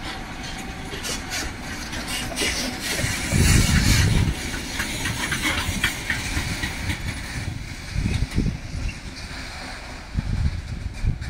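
Train wheels rolling slowly over rail joints and points: a steady rumble with scattered clicks, and heavier low thumps about three and a half seconds in, around eight seconds, and near the end.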